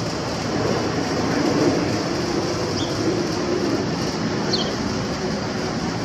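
Jet engines of a Boeing 777-300ER on approach, gear down, passing overhead as a steady rumble with faint drifting tones. Two short high falling chirps sound over it, about three and four and a half seconds in.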